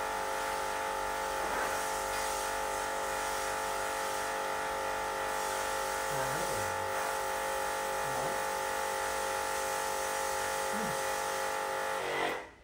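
Induction cooker unit fitted into a gas-stove body, running with a steady electrical buzz of several tones; it is switched off and stops suddenly near the end.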